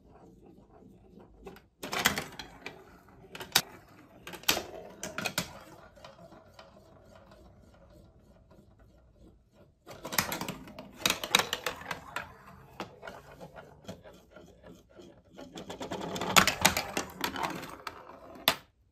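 Marbles rolling and clattering through a plastic block marble run: sharp clacks and rattles in separate bursts as they drop between pieces. Near the end there is a longer rattling run that stops suddenly.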